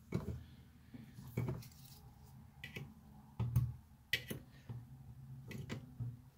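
Needle-nose pliers clicking and scraping against a hard drive's thin metal cover seal as it is lifted and peeled off: a scattering of sharp ticks and small taps, the loudest about three and a half seconds in.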